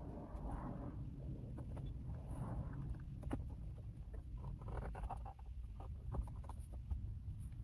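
Faint rustling and scraping of hands working a car door's plastic trim panel, with a few light clicks, over a low steady rumble.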